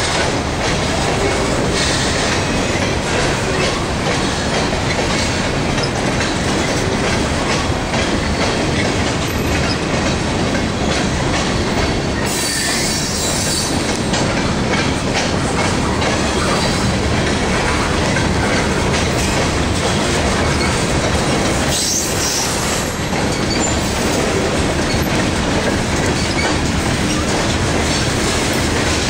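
CSX freight train's cars rolling past close by: a steady, loud rumble and clatter of steel wheels on the rails.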